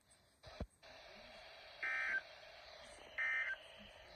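Emergency Alert System end-of-message data bursts: two short, warbling, beep-like bursts of digital tones about a second and a half apart over steady radio hiss. A click about half a second in comes as the hiss starts.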